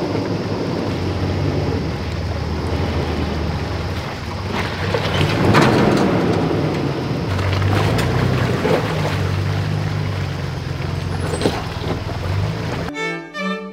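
Toyota Land Cruiser Prado engine running at low revs while the 4WD crawls through mud and shallow water, the revs rising and falling, with its tyres splashing and a few knocks from the vehicle. String music comes in near the end.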